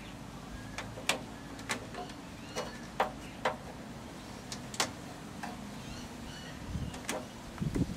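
Screwdriver clicking against circuit breaker terminal screws as each termination is checked for tightness: about eight sharp, irregular clicks over low steady background noise. A loose breaker terminal is what this check guards against, since it makes a hot joint.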